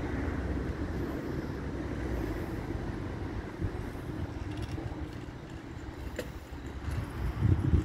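Steady low rumble of vehicles that slowly eases off, with a few loud low thumps near the end.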